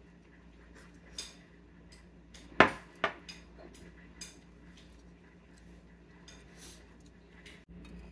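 Enamel coffee mug set down on the tabletop: two sharp knocks about half a second apart, some two and a half seconds in, among a few fainter clinks of dishes.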